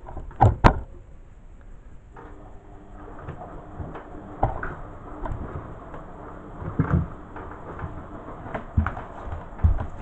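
Plastic clicks and knocks from a condenser tumble dryer's access panel and condenser unit being unlatched and pulled out of the housing: two sharp clicks about half a second in, then scattered knocks and scraping of plastic.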